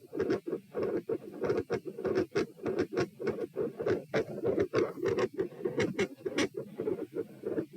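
Human heart sounds heard through a stethoscope at the pulmonic area: a fast, loud S1 and S2 about twice a second, with a murmur. This is a tachycardia on standing, the rate climbing from about 96 to 132 beats a minute as the person rises from sitting.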